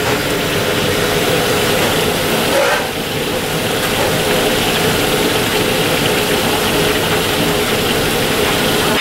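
Gas wok burner running at high flame under a wok of frying fish, a loud, steady noise with the oil sizzling.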